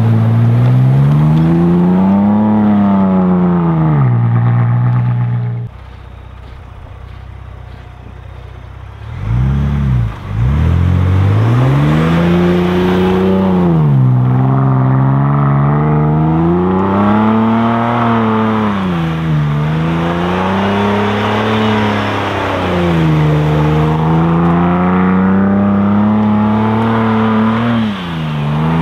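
Ford Bronco Raptor's twin-turbo V6 revving up and down again and again as the truck is driven hard through deep snow. It settles to a lower, quieter steady note for a few seconds about six seconds in, then revs again in repeated rising and falling surges.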